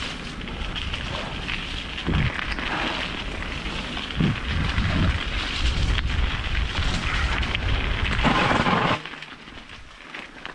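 Mountain bike tyres rolling fast over a gravel forest singletrack, with wind rushing on a helmet-mounted GoPro, a continuous rough rumble and heavier jolts over bumps. The noise drops off sharply about nine seconds in.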